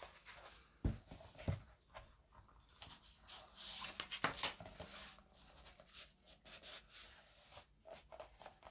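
Faint rustling and scuffing as a pen pouch is forced onto a notebook, with scattered small clicks and knocks.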